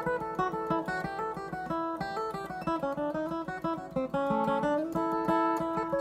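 Mahogany acoustic guitar played with a plectrum: a brisk line of separate picked notes, several per second, changing pitch as it goes.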